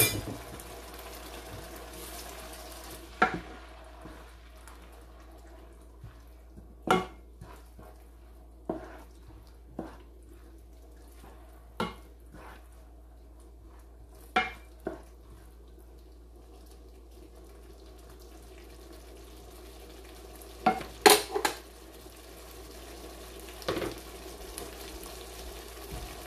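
Tomato sauce simmering in a frying pan, with a wooden spatula stirring and knocking against the pan now and then; a cluster of louder knocks comes near the end.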